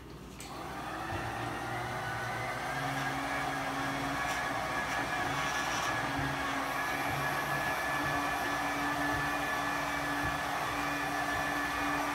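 Handheld immersion blender running in a bowl of thick, pudding-like soap batter, mixing in essential oils. The motor starts right at the beginning, builds over the first couple of seconds, then runs as a steady hum.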